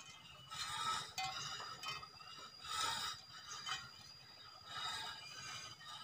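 Faint high-pitched bird chirping that comes in short bursts about every two seconds, with a steady thin high whine running under it from about a second in.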